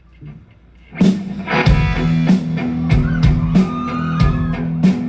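A live rock band comes in about a second in with the song's instrumental intro: guitar and a drum kit keeping a steady beat, before any singing.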